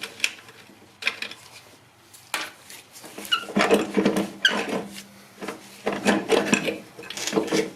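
Metal clicks, clinks and scraping of a small 13 mm wrench working the brake booster's mounting nuts off, in irregular clusters that get busier partway through, with a few ringing metallic taps.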